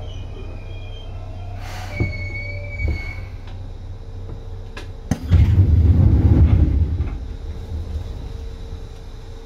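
Seibu 2000 series electric train heard from aboard while running: a steady low rumble with a faint steady tone. Thin wheel squeals come in the first few seconds. From about five seconds in, a loud surge of rumble lasts roughly two seconds, then fades back to the running rumble.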